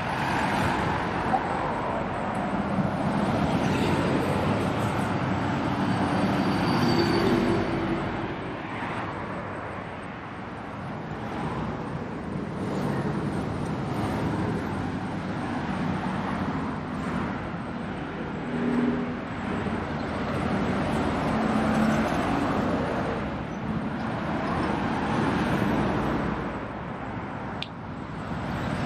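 Steady city road traffic: passing cars and other motor vehicles, with engine hum and tyre noise rising and falling as vehicles go by.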